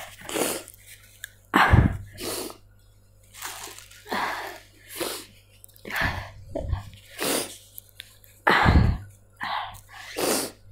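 A person close to the microphone sniffling and catching breath in short gasps, about one a second, with two louder sobbing breaths, the sound of someone crying.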